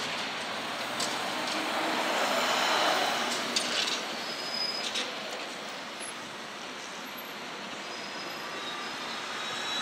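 Steady street traffic noise from passing vehicles, swelling as a vehicle goes by about two to three seconds in, with a few light clicks.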